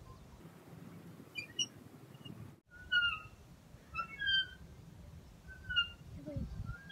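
Metal playground swing squeaking at its seat hangers as it swings, a short falling squeak about once a second.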